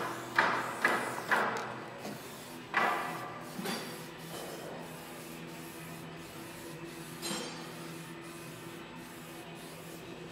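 A hand-held pad rubbed in short strokes over the painted steel hood of a Hanomag R12 tractor. There is a quick run of swishes in the first four seconds and one more a little after seven seconds, over a faint steady hum.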